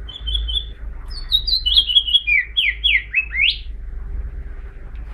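House finch singing: a warbled song of quick high notes that steps downward, ending in a few upward-sweeping notes, about three and a half seconds long.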